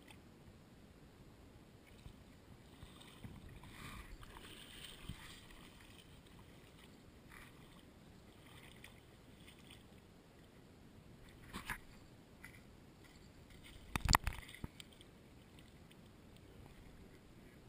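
Faint water sounds and footsteps on gravel, with a couple of soft clicks and, about two-thirds of the way through, a short, loud cluster of knocks and thumps.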